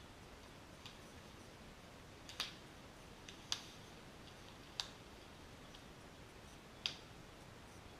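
Four sharp clicks at uneven intervals, with a few fainter ticks between them, over a faint steady hiss.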